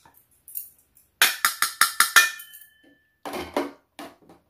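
Thin aluminium (yangeun) pot lid struck about seven times in quick succession, ringing briefly after the last hit. A few lighter clanks of metal follow about a second later.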